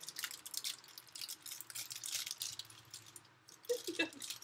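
Candy wrappers crinkling and crackling as they are unwrapped by hand, a quick irregular run of small crackles, with a short vocal sound near the end.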